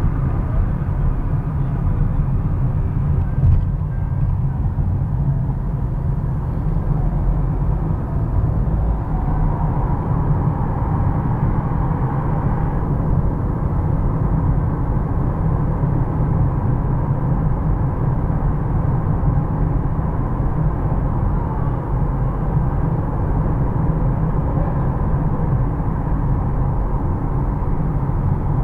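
Car driving on city streets: a steady low rumble of road and engine noise, with one sharp click about three and a half seconds in.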